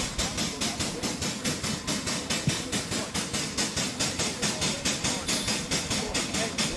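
Narrow-gauge saddle-tank steam locomotive Badger hissing steam as it stands on a turntable, the hiss pulsing evenly about six times a second.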